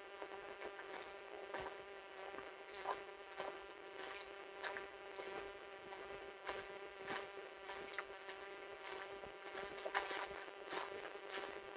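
Footsteps crunching through dry fallen leaves on a dirt and rock trail, one crisp step about every half second to second, over a steady buzzing hum.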